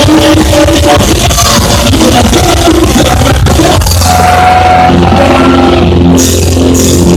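Rock band playing a song loudly and steadily, with long held notes over the band from about four seconds in.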